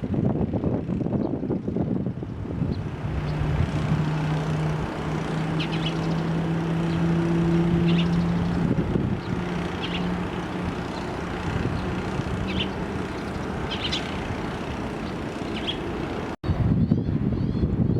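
Jet airliner engine noise at an airport: a steady rushing with a low drone that holds for several seconds and then fades, cut off abruptly about sixteen seconds in.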